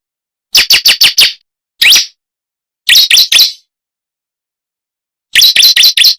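Bar-winged prinia (ciblek) lure call: loud, sharp chipping notes in bursts of four, one and three, then a faster run of six or more near the end. It is a recorded lure call played to draw wild ciblek into answering.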